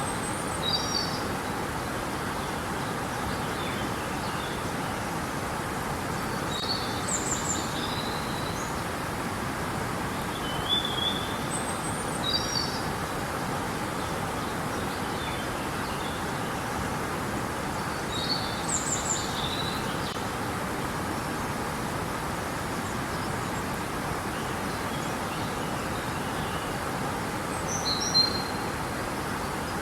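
Steady rush of flowing river water, with a songbird's short high chirps recurring every few seconds over it, the loudest near the end.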